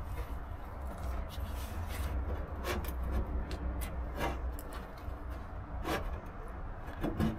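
A few scattered knocks and light rubbing as the front valance panel of a Rover P6 is tugged and worked against its mountings, with a steady low hum underneath.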